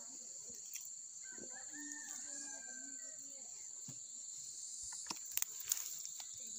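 A rooster crows once, faintly, about a second and a half in, over a steady high buzz of insects. A few short soft clicks come near the end.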